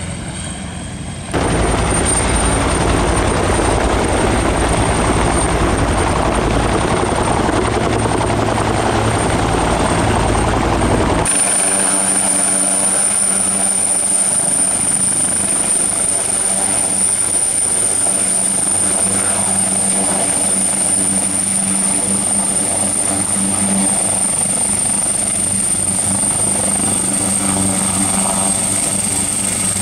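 AgustaWestland AW139 helicopter's rotor and twin turboshaft engines. A loud even rotor noise as it flies, which jumps louder about a second and a half in. From about eleven seconds, a steady high turbine whine over a steady rotor hum as it hovers low and stands on the ground with its rotors turning.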